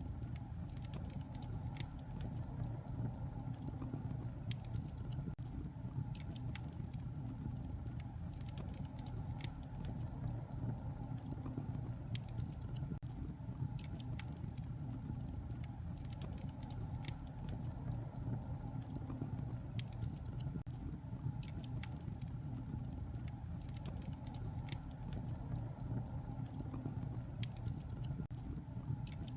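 Wood fire burning in a fireplace: a steady low rumble of flames with frequent irregular crackles and snaps.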